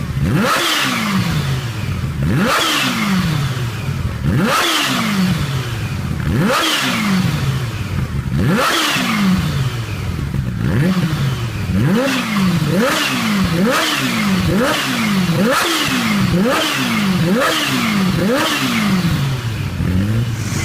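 Kawasaki H2's supercharged inline-four engine revved in sharp throttle blips, each one shooting the revs up and letting them fall back. The blips come about every two seconds at first, then quicker, roughly one a second, from about halfway.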